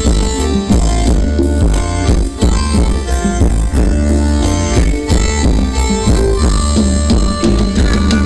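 Loud live Thai luk thung band music played over stage loudspeakers, with a steady drum beat and heavy bass under held melody notes.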